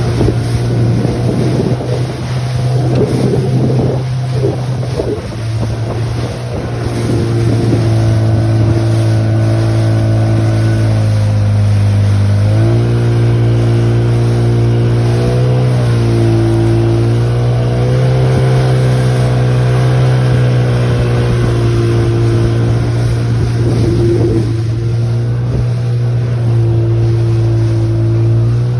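Mikatsu M30FHS two-stroke outboard motor running under way, a steady engine note whose revs step up about twelve seconds in and waver slightly after that. Wind and water rush are mixed in, strongest in the first few seconds.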